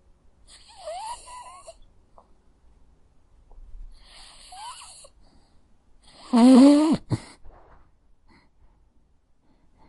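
A sleeping dog snoring: three breaths, the first two with a faint rising whistle, the third, about six seconds in, much louder, with a low pitched note that drops away at its end.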